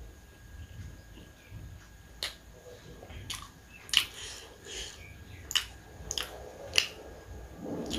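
Close-miked eating: chewing with sharp, wet mouth smacks and clicks, about six of them at uneven intervals from about two seconds in.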